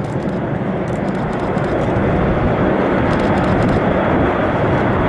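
Airbus A380-861's four Engine Alliance GP7200 turbofans running at taxi power as the jet rolls toward the listener: a steady rushing jet noise that grows louder throughout, with a faint high whine on top.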